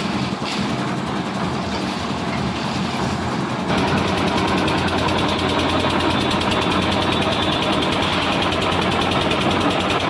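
Concrete lift mixer (dhalai machine) engine running steadily. From about four seconds in it is louder and closer, as the mixer's skip bucket is hoisted up the lift tower.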